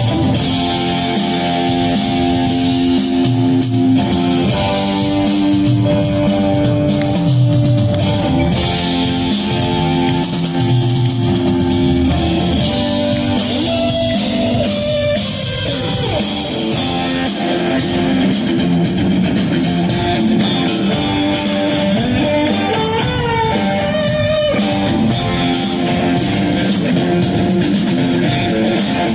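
Live rock band playing an instrumental passage, guitar over drum kit, with no singing.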